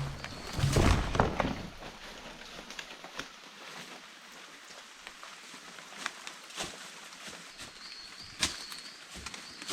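Rustling and scattered clicks outdoors, loudest in the first second and a half. Near the end a bird gives a short, high, wavering call.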